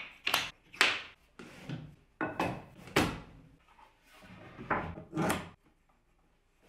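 Wooden boards being slid and set down on a wooden workbench top: a string of short scrapes and knocks.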